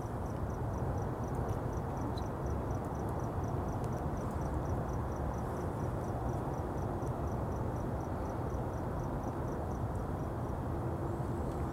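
A cricket chirping faintly and evenly, about four chirps a second, stopping near the end, over a steady low background rumble.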